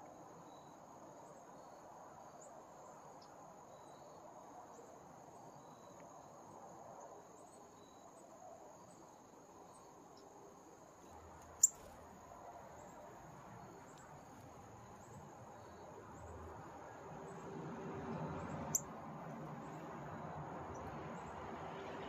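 Steady high-pitched trill of crickets, with two sharp clicks, one about halfway through and one a few seconds later.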